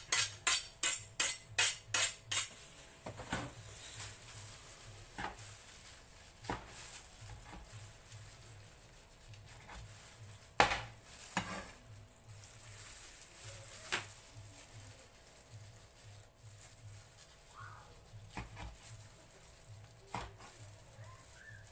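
Large kitchen knife chopping cooked roast beef on a wooden cutting board. A quick run of about nine sharp chops comes in the first couple of seconds, then scattered single knocks, one louder about ten seconds in.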